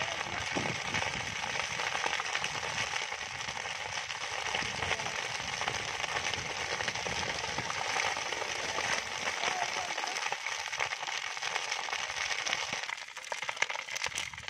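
A field fire burning through tall dry standing vegetation: dense, steady crackling. Near the end it thins into scattered sharper pops.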